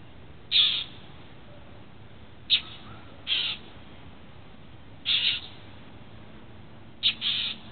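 Northern mockingbird giving short, harsh scolding calls at a cat, six in all, one every second or two, some in quick pairs. These are the bird's alarm or mobbing calls at a predator.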